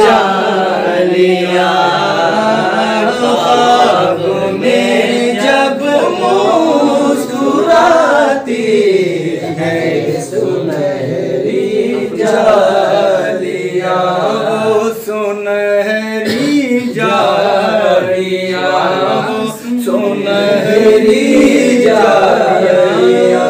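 Men's voices singing an Urdu naat together without instruments, in a chanting style, the lines drawn out on long held notes.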